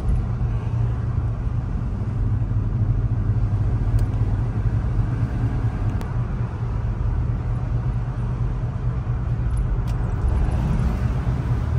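Road noise heard from inside a moving car's cabin: a steady low rumble of engine and tyres.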